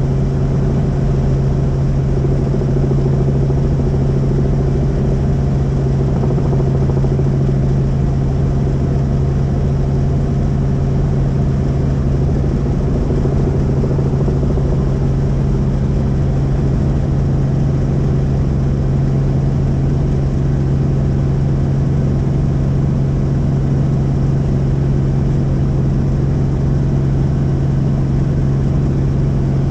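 Helicopter in flight: steady engine and rotor noise with a strong low hum, unchanging throughout.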